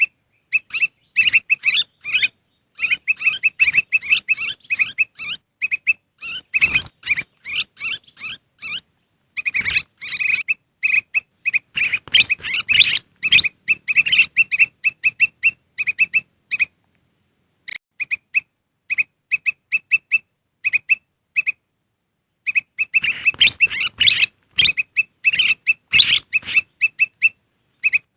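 Kutilang emas bulbuls calling: a fast string of sharp, high chips several times a second, broken by busier bursts of chattering song and two short pauses. It is a lure call played to draw wild birds in.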